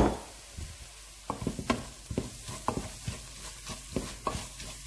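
Wooden spatula stirring and scraping an onion and spice-powder masala in a pot, in short repeated strokes over a faint sizzle of frying on low heat: the spice powders being roasted into the onions. A sharp knock at the very start.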